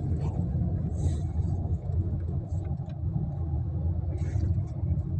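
Car driving along a street, heard from inside the cabin: a steady low rumble of engine and road noise, with a couple of brief hissing swells about a second in and again near the end.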